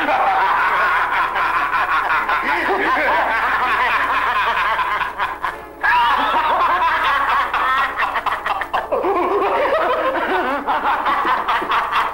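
Two men laughing uncontrollably in a long, continuous fit of giggling and cackling laughter. It dips briefly about five and a half seconds in, then picks up again.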